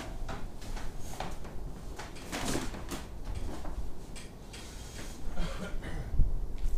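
Handling noise at a car trailer's rear: a canvas tarpaulin rustling as it is pulled up, with scattered knocks and clunks on the trailer's metal body. The loudest thump comes about six seconds in, as someone steps down off the trailer's rear.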